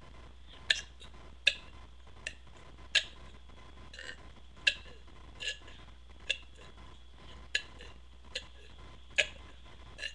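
A series of short, sharp clicks, roughly one every 0.8 seconds, over a faint steady hum.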